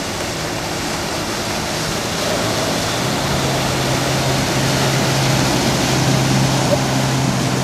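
Pickup truck driving through deep street floodwater, its wheels throwing up a steady rush of spray. A low engine hum grows louder from about three seconds in as the truck passes close.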